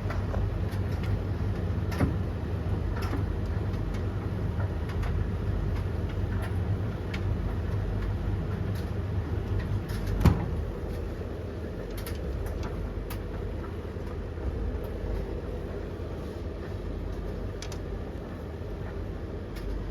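Blomberg LTK310030W, Russell Hobbs RH3VTD800 and Hoover HLEC8TRGR-80 tumble dryers running together mid-cycle: a steady drum rumble and motor hum with scattered light clicks, and one louder knock about halfway through.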